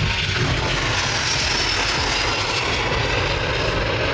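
Airbus A330-900neo's Rolls-Royce Trent 7000 turbofan engines at takeoff thrust as the airliner lifts off and climbs away: a steady jet engine noise whose high hiss grows stronger about a second in.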